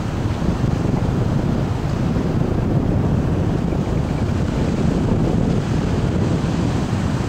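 Wind buffeting the microphone in a steady low rumble, with surf breaking on rocks underneath.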